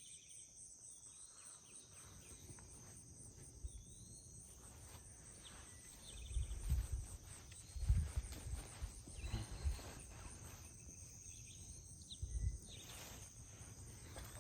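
Steady high-pitched insect chorus, like crickets, with scattered short bird chirps. Low rumbling thuds come and go from about six seconds in, loudest around eight seconds and again near twelve seconds.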